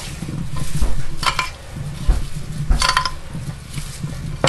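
Hands tossing oiled grape tomatoes in a glass baking dish: tomatoes shuffling and rolling against the glass, with three sharp clicks about a second and a half apart.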